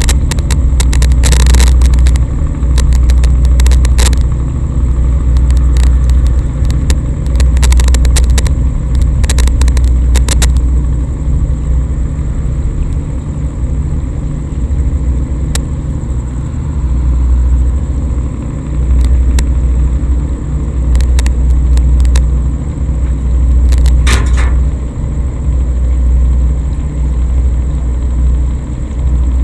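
Outdoor night ambience, heavily amplified: a loud low rumble that swells and eases every couple of seconds, with scattered crackles and a faint steady high whine.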